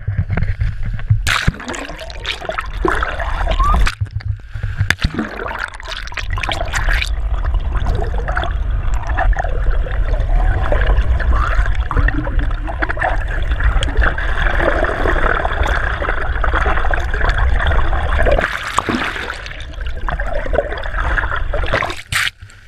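Gurgling, rushing water heard from an action camera held underwater in the sea, with splashes as it goes in during the first few seconds. The sound drops away suddenly near the end as the camera comes out through the surface.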